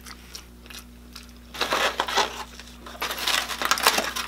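A foam takeout clamshell box being picked up and opened close to the microphone, creaking and crackling in two bursts, the first about a second and a half in and a longer one about three seconds in.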